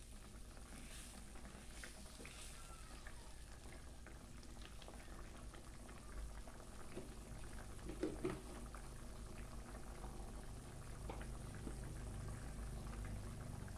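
A pot of soup boiling: a steady low bubbling rumble with small scattered pops that grows slightly louder. Two light knocks come just past the middle.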